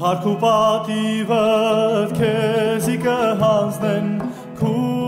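Armenian troubadour-style folk song: a voice singing wavering, ornamented notes over a steady instrumental drone. There is a short break about four seconds in, then the voice comes back.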